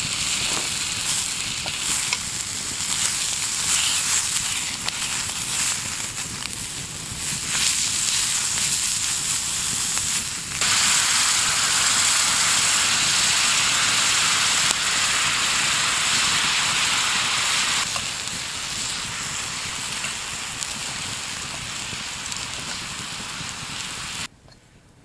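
Beer bratwurst frying with a steady sizzle. The sizzle gets louder and brighter about ten seconds in, eases back a few seconds later and cuts off abruptly near the end.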